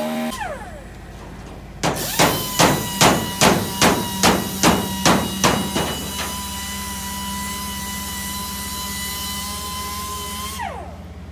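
About ten evenly spaced hammer blows on the steel plate of a truck bed, a little under three a second. A steady high tone follows and slides down as it stops near the end.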